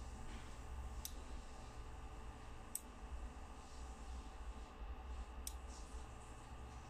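Ender-3 3D printer's stepper motors on TMC2209 drivers running during sensorless homing: a low steady hum whose upper part switches on and off, with three sharp clicks about one, three and five and a half seconds in.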